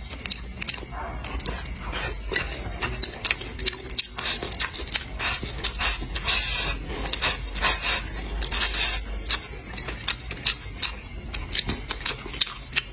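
Close-up eating sounds: chewing with wet mouth clicks and smacks, and wooden chopsticks clicking and scraping against a ceramic plate as rice is pushed from the plate's edge into the mouth.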